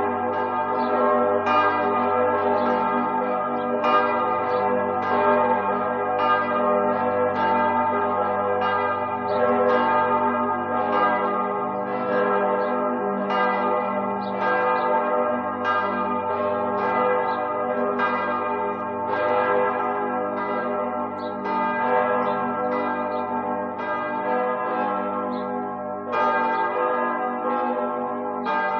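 Several church bells pealing together, strike after strike, their tones ringing on and overlapping into a continuous wash.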